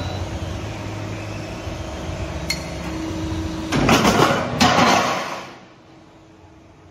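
Double-layer roll forming machine running with a steady motor hum, then about four seconds in two loud bursts of metallic clatter from the thin red steel roofing panel as it leaves the rollers and comes down. After that the machine stops, leaving only a faint low hum.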